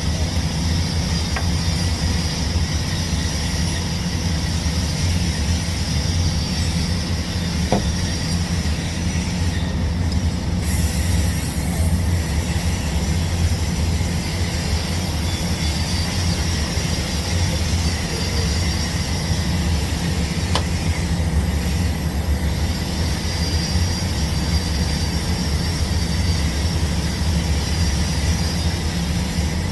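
TIG welding arc burning steadily on pipe during a root pass: a continuous electrical buzz with a hiss and a thin high whine over it.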